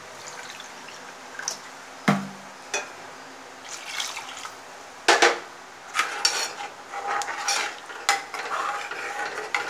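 Steel ladle clinking and scraping against a metal pan while a thin coconut curry is stirred, with sharp clinks about two and five seconds in. Water is poured into the curry from a glass.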